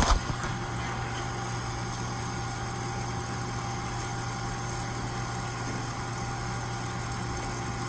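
A steady low machine hum with a few faint steady tones above it, and one brief knock right at the start.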